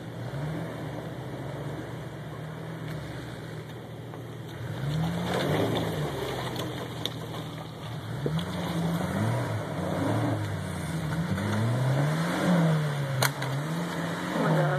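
A Jeep Wrangler's engine revs up and down again and again as it works up a rocky hill climb, over a steady engine idle close by. There is a single sharp click near the end.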